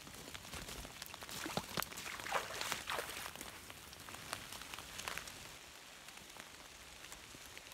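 Rain falling on wet leaf litter and standing water: a steady hiss with many small drop ticks. Footsteps in rubber boots through the soaked leaves come and go over it, loudest in the first half.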